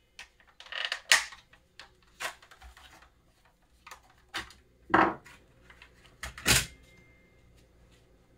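Plastic clicks, snaps and knocks as a Chevy Express instrument cluster's housing is pried apart by hand and the circuit board comes free. The clicks come irregularly, with two heavier knocks in the second half.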